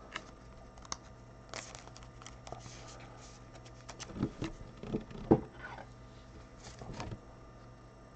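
Gloved hands handling a trading card and sliding it into a clear plastic holder: soft scrapes, rustles and small taps of card and plastic, the loudest few about four to five seconds in.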